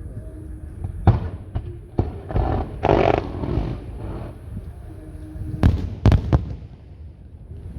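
Aerial fireworks bursting: sharp bangs about a second in and again at two seconds, a spell of crackling around three seconds, then three bangs in quick succession near the end.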